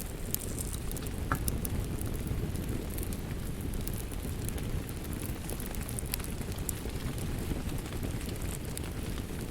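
Steady rainfall with a wood fire crackling over it, scattered sharp pops and snaps breaking through a dense low rumble.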